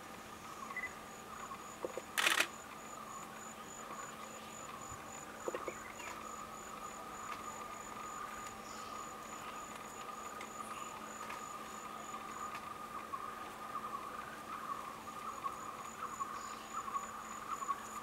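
Steady insect chorus in forest: a continuous mid-pitched drone with a fast, evenly pulsing high-pitched trill over it that stops for a couple of seconds past the middle and then resumes. A short, sharp burst stands out about two seconds in, with a softer one a few seconds later.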